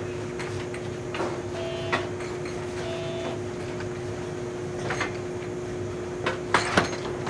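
Clicks and knocks of the gangway bellows between two coupled 183 series train cars being pulled out and latched, the loudest a quick cluster of sharp metal clacks near the end, over the steady hum of the standing trains. Two short tones sound about two and three seconds in.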